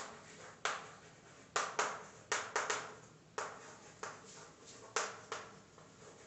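Chalk writing on a chalkboard: a string of sharp, irregularly spaced taps as the chalk strikes the board with each letter stroke.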